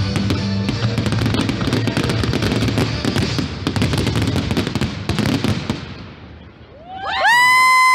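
Fireworks going off in a dense rapid crackle of many pops and bangs, dying away about six seconds in. Near the end a loud steady high-pitched tone starts abruptly.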